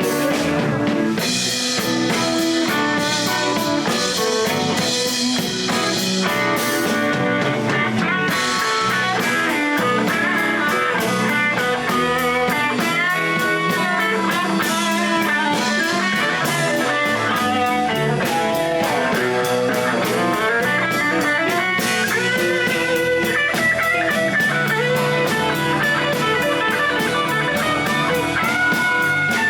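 Blues band playing: guitar lead with bent, sliding notes over a drum kit, at a steady loud level.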